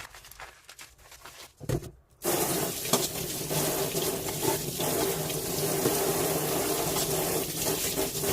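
Kitchen tap turned on about two seconds in, water running steadily into the sink for several seconds, then shut off near the end. Before it, a few faint handling clicks and a soft knock.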